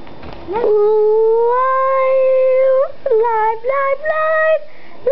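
A child's voice holding one long high note that rises slightly and lasts about two seconds, then breaking into a quick run of short notes, like a playful sung howl.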